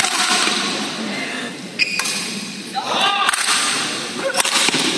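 Badminton rally: rackets striking the shuttlecock with several sharp cracks, over the steady noise of a sports hall.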